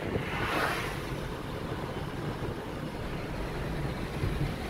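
Steady road and engine noise inside a moving car's cabin on a rain-wet road, with a brief rising-and-falling hiss about half a second in.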